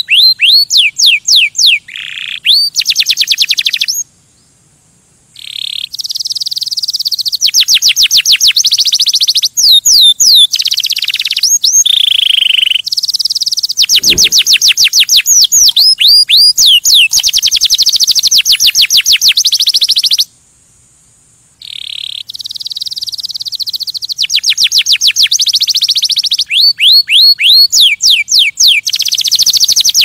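Male domestic canary singing loud and close: fast rolling trills of high repeated notes alternating with falling whistled slurs, broken twice by a short pause.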